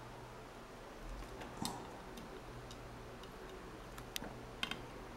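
Faint, sharp ticks from hand soldering a circuit board, as the soldering iron tip and solder wire touch the board's pads and pins, over a low steady hum. One click comes about a second and a half in and three more close together near the end.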